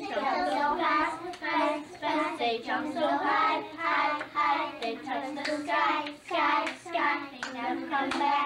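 A small group of young girls singing a song together in unison, with light hand claps.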